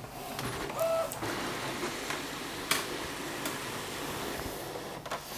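Epson SureColor P900 inkjet printer running as it finishes the nozzle-check print and feeds the sheet out, with a short whine about a second in and a sharp click near the middle.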